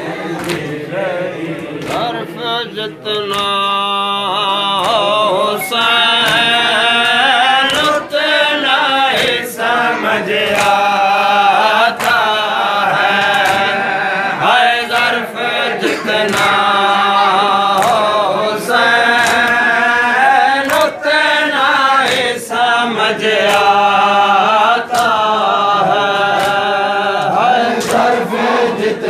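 A group of men chanting a noha, a mourning lament for Hussain, in unison. Regular sharp beats run through it, the hand strikes of matam (chest-beating) keeping time with the chant.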